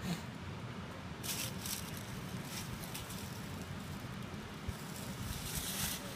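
Dry leaves and brush crackling and rustling in several bursts, the longest near the end, as someone scrambles up a steep, leaf-littered bank. Underneath is a steady low rumble of wind on the microphone.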